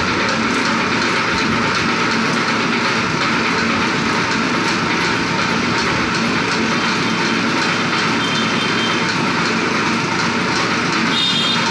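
Electric-motor-driven screw oil expeller running steadily while pressing oilseed, a loud continuous mechanical grind and rattle.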